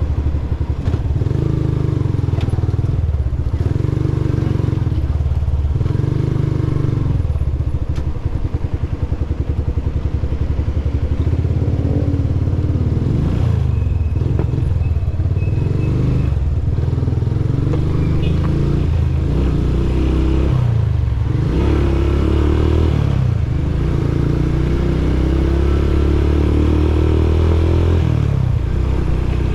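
Motorcycle engine running while riding, its pitch rising and falling with the throttle over a strong low rumble.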